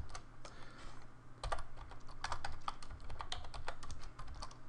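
Typing on a computer keyboard: an irregular run of keystroke clicks, about three or four a second, with a short pause about a second in.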